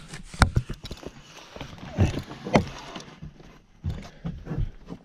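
Footsteps: an uneven series of knocks and thumps, with sharp clicks among them.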